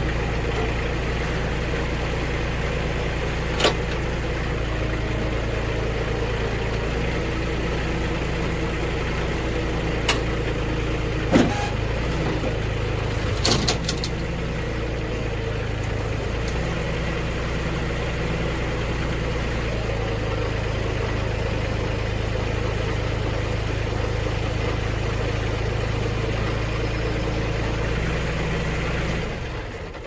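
Old New Holland tractor's engine running steadily, with a few sharp knocks along the way; the engine is shut off near the end and the sound dies away.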